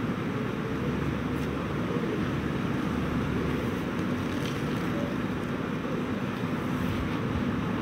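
Steady low rumbling noise with a faint constant hum and no distinct events.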